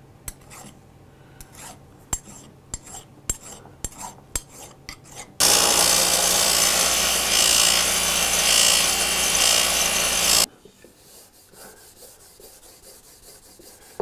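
Hand-filing strokes on the infill plane, short and fairly regular. About five seconds in, a loud steady machine noise cuts in and stops abruptly about five seconds later, after which quieter rubbing strokes resume.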